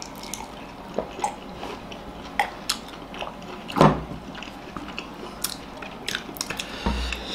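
Close-miked eating sounds: people biting and chewing soft, wet egg momo dumplings, with small mouth clicks and smacks scattered throughout. A single louder knock comes about four seconds in.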